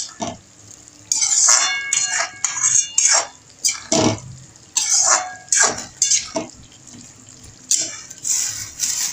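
Metal slotted spoon scraping and stirring thick chutney in a metal kadai: a run of irregular scraping strokes, about one or two a second, some with a brief metallic ring.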